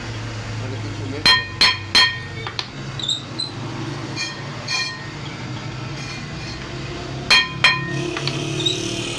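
Workshop machine running with a steady low hum, and a piece of metal being struck so that it rings sharply: three quick strikes a little over a second in, and two more near the end.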